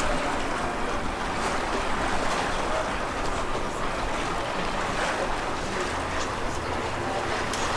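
A small passenger water taxi under way: a steady rush of water along the hull and wake, with a low hum from the boat's drive underneath and wind on the microphone.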